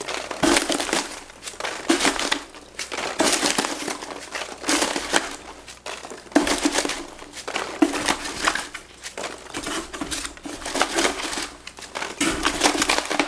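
Styrofoam packing peanuts and packing material being rummaged through in a cardboard box by hand: a dense, irregular crinkling rustle.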